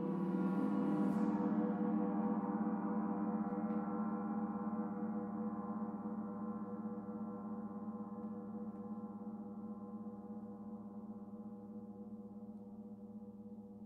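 Paiste Saturn planetary gong, tuned to D at 147.85 Hz, ringing in a long sustained wash of overlapping tones. It builds a little in the first second or two, its bright upper shimmer fading, then slowly dies away.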